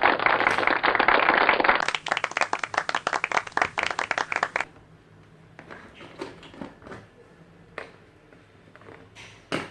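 Plastic Lego bricks clattering as hands rummage through a pile of them: a dense rattle of many quick clicks for the first four to five seconds, then sparse clicks of single bricks being handled, with one louder click near the end.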